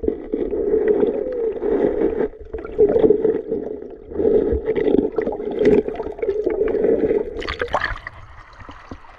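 Stream water gurgling and sloshing, heard muffled through a camera held underwater in a shallow river, coming in uneven surges. A sudden louder splashing rush comes about three-quarters of the way through, as the view comes back up to the surface.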